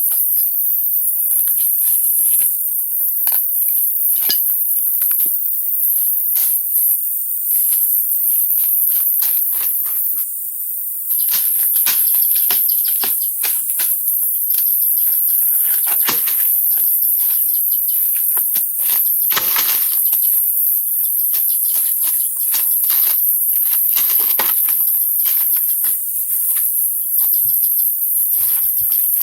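Steady, high-pitched insect chorus, such as crickets or cicadas, with many short clicks and knocks scattered through it.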